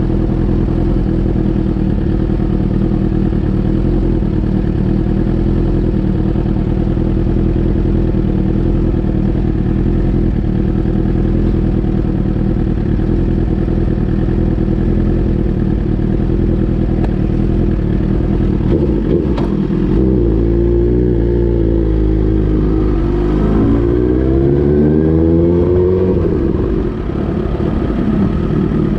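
Suzuki GSX-R1000 inline-four running through an Austin Racing aftermarket muffler. It holds a steady low idle-like note for about twenty seconds, then the revs change, rising and falling back near the end.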